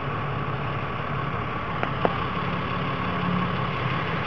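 A vehicle engine idling steadily, with two light clicks about two seconds in.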